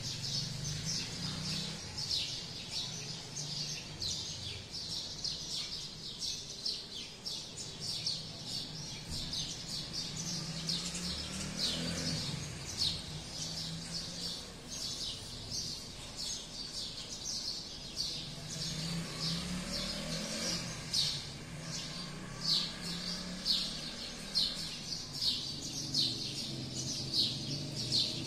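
Small birds chirping: quick high chirps, several a second, without a break, with the low sound of distant traffic passing now and then.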